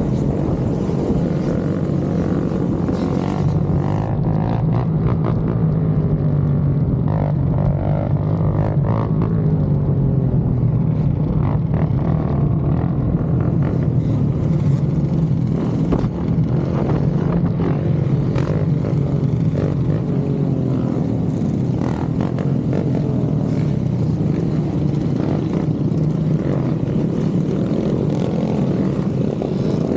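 Motorcycle engine running steadily, a continuous drone that holds its pitch with no sharp revs.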